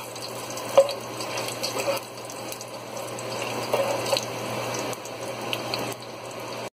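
Over-the-range microwave's vent fan running steadily, drawing off the vapour from the pot. Under it, garlic fries in hot oil and a spatula knocks against the pot a few times.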